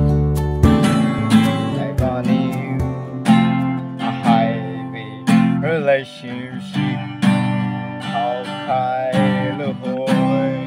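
Acoustic guitar strummed in a steady rhythm, with a singing voice over it at times.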